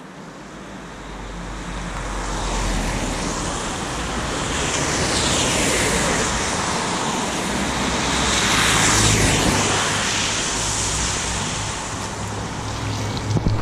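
Cars driving past on a rain-soaked street, their tyres hissing through the water on the asphalt. The hiss swells twice, around six and nine seconds in, then eases off.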